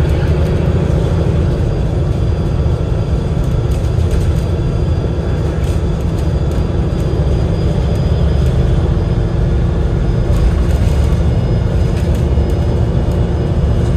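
Double-decker bus's Cummins L9 inline-six diesel and Voith DIWA automatic gearbox running steadily under way, heard from inside the cabin: an even low rumble with faint steady whine tones above it.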